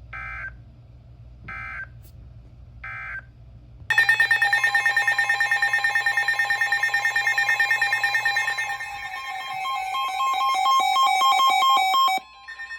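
Emergency Alert System tones: three short bursts of digital data screech about 1.5 seconds apart, then a loud, steady two-tone attention signal that starts about a second later and cuts off near the end.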